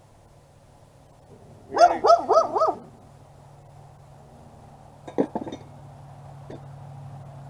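A dog barking, a quick run of about five short yelps about two seconds in. A few sharp knocks follow around five seconds in, and a low steady hum grows louder near the end.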